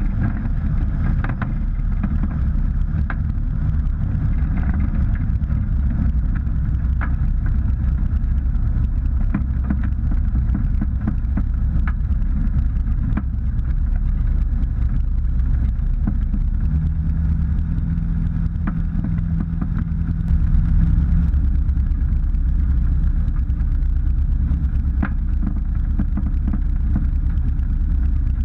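The Rotax 912UL four-cylinder, four-stroke engine and pusher propeller of a Drifter ultralight running steadily, getting louder about twenty seconds in.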